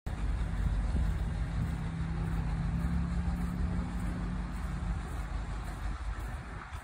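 Narrow-gauge diesel locomotive idling: a steady low engine drone that eases off slightly about five seconds in.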